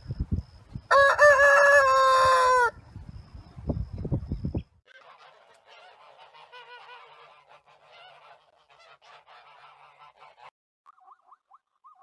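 A goose giving one loud, long honk about a second in, followed by fainter chattering calls. Low rumbling thumps are heard around the honk.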